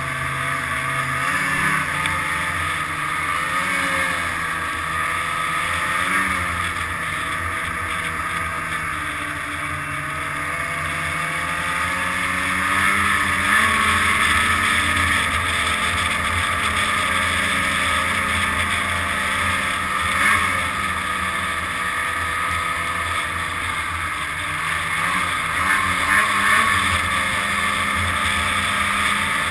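Snowmobile engine running under way along the trail, its pitch rising and falling with the throttle.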